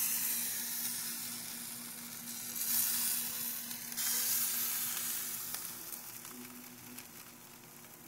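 Whole trout sizzling on a hot grill grate: a steady hiss that swells twice near the middle and fades toward the end.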